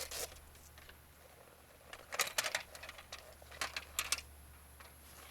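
Short clicks and rattles of a billet-aluminium model-airplane stand being handled as its leg tray is unbuckled, in two quick clusters about two and four seconds in, over a faint low hum.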